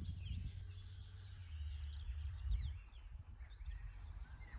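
Songbirds chirping in many short, quick notes that glide up and down, over an uneven low rumble.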